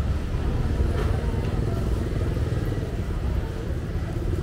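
Steady low rumble of motorbike engines in city street traffic.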